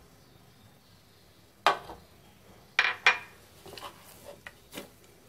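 A small glass bowl knocks sharply against a ceramic plate three times, once about one and a half seconds in and twice more a second later, as melted butter is poured onto pizza dough. The knocks are followed by quieter, sticky squishes of a hand kneading the buttered dough.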